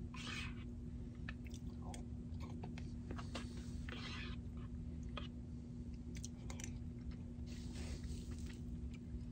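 A person eating soup with a spoon: chewing, with small clicks of the spoon against the bowl, over a steady low hum.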